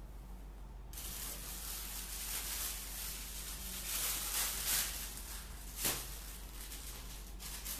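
Rustling and crinkling of a thin plastic piping bag being pulled from its pack and handled. It starts about a second in, with a couple of sharper crackles past the middle.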